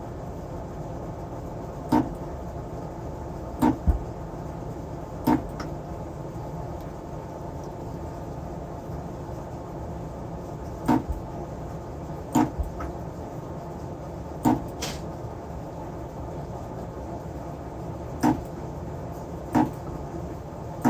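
Battery tab spot welder firing on nickel strip: about ten short, sharp snaps at irregular intervals, some in quick pairs, over a steady background hum.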